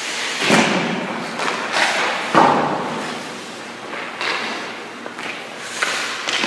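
Hockey pucks thudding off a goalie's pads and the boards, with skate blades scraping the ice: about five sharp hits, the loudest about two and a half seconds in, each echoing in the rink.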